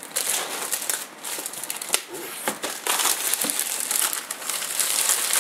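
Clear plastic shrink wrap being peeled off a cardboard box and crumpled in the hands: continuous crinkling and crackling with many sharp snaps, louder from about three seconds in.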